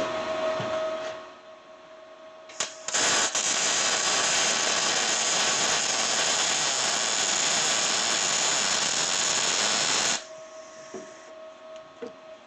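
Welding arc crackling steadily for about seven seconds, joining two metal pieces of a fabricated core support bolt. It starts with a click about two and a half seconds in and cuts off abruptly near ten seconds.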